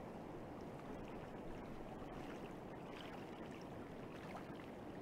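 Faint, steady background ambience: an even hiss and low rumble with a few soft clicks.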